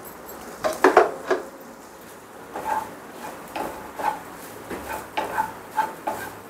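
Wooden spatula scraping and knocking against a non-stick kadai while stirring grated fresh coconut frying in ghee. A burst of loud knocks comes about a second in, then lighter strokes follow every half second or so.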